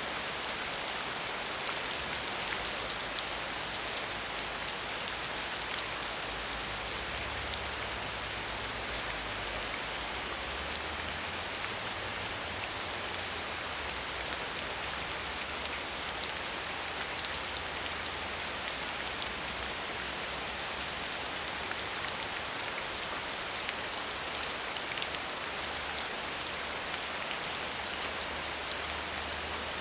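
Steady rain falling, a dense even patter of drops hitting surfaces with many small distinct drop ticks.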